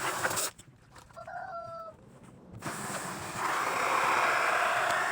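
A hen gives one short call about a second in. Then a steady rush of water from a hose filling an animal's water bucket starts and runs on.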